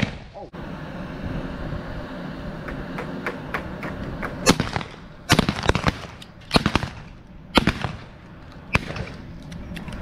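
Shotgun shots, about six sharp blasts in quick succession over some four seconds, starting about halfway through. A steady low hum runs underneath before them.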